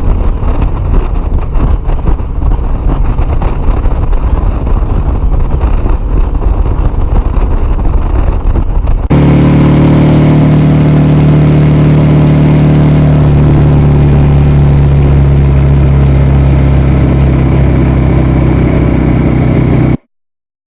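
Suzuki SV650A's 645 cc V-twin engine and exhaust running. For the first nine seconds or so the sound is rough and uneven, with heavy low rumble. It then switches abruptly to a steady, even engine tone, which cuts off sharply near the end.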